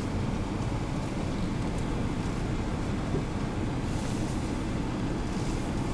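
Four-wheel-drive vehicle running steadily as it drives along a stony creek bed between water crossings.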